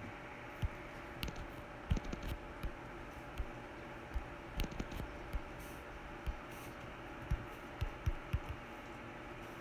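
Light, irregular taps of a finger on a phone's touchscreen, over a steady faint hiss.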